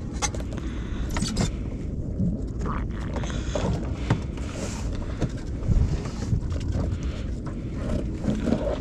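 Steady low rumble of wind and water around a small open fishing boat, with scattered light clicks, knocks and scrapes from hands working the gillnet and a plastic can.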